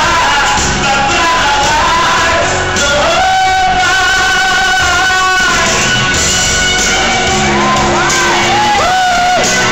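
Loud pop dance music with a singing voice, heard in a large hall: a long held note in the middle, then short swooping vocal cries near the end over a steady bass beat.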